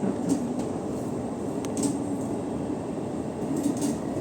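Running noise of a JR East E233-1000 series electric commuter train heard inside a passenger car: a steady rumble of wheels on the rails, with a few faint ticks.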